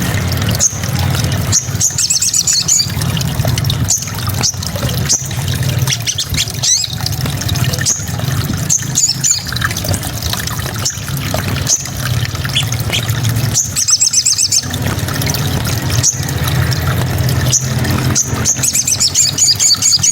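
Small songbird singing in short bursts of rapid, high trills and chirps, the fast 'shooting' style of song used for mastering cage birds. A steady low hum runs underneath.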